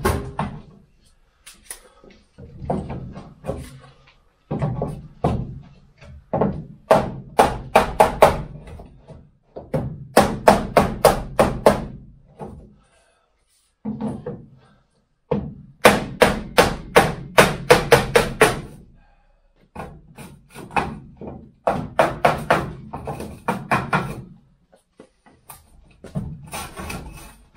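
A hammer striking the steel window frame of a VW T2 Bay camper van in quick runs of sharp knocks, about four or five a second, in bursts of a few seconds with short pauses between, while the old window rubber is worked out.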